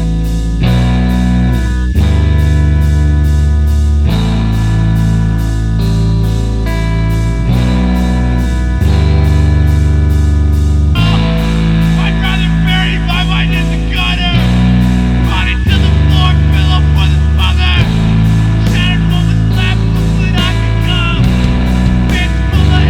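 Rock music with guitar, sustained bass notes changing every couple of seconds and a fast steady cymbal tick. About halfway through, a higher wavering melody line comes in over it.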